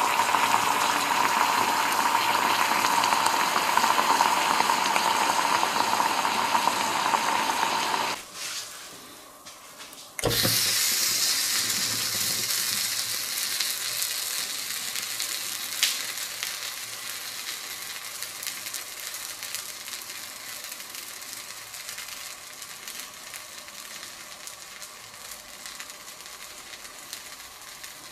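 Honey sizzling and bubbling against a red-hot metal ball. The sound drops away about eight seconds in. Around ten seconds a fresh loud sizzle starts suddenly and slowly fades.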